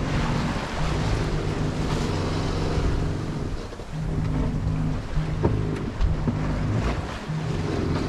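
Sailboat under way in strong wind: water rushing along the hull and wind on the microphone, with a steady low hum underneath and a single click about five seconds in.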